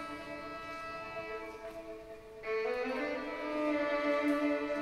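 Four violins holding long notes together in a dense, static chord. About halfway through the sound thins out, then a louder new chord enters, with some of its notes sliding up into place.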